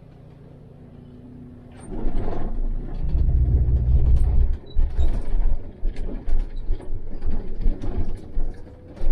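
Heavy vehicle running with a low hum, then from about two seconds in a loud deep rumble, followed by a stream of sharp rattles, knocks and creaks.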